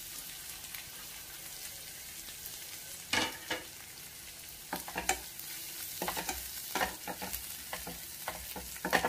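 Masala of ginger paste with cumin and coriander powder sizzling steadily in hot oil in a pan. A spoon scrapes and stirs it in short strokes from about three seconds in, several times over.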